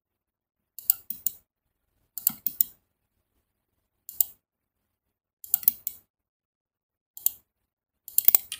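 Computer mouse clicking in short clusters of two or three clicks, about every second or so, with silence between. These are the clicks that place the points of a curve in CAD software.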